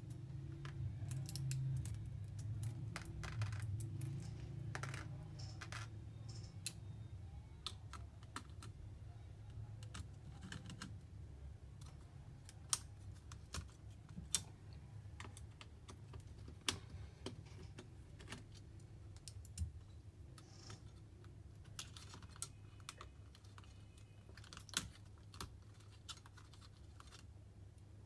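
Scattered small clicks and taps of a screwdriver, screws and metal parts against the opened chassis of an HP EliteBook 840 G3 laptop while the heatsink and fan are worked on, over a low steady hum.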